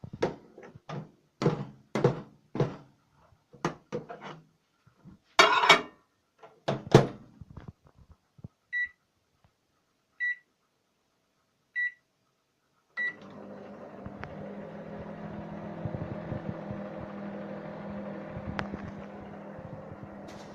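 Knocks and clatter of a microwave oven being handled, then four short beeps about a second and a half apart from its keypad. About two-thirds of the way in it starts running with a steady hum.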